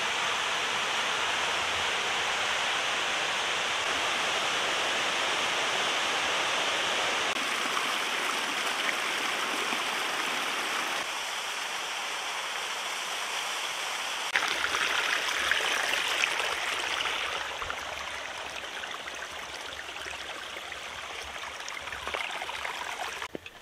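Rushing water of a small mountain waterfall and stream, a steady splashing rush that shifts in level a few times.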